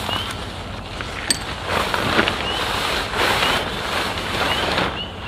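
Nylon tent fabric rustling and swishing in repeated bursts as a dome tent is pulled down and collapsed.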